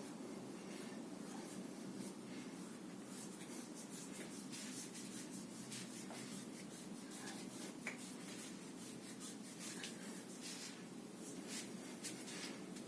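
Soft, scratchy rubbing and brushing sounds, many short strokes, over a steady low hum.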